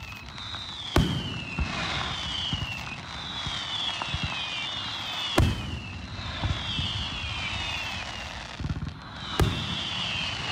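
Aerial fireworks shells bursting: three sharp bangs about four seconds apart. Between the bangs, high whistles fall in pitch over a steady hiss.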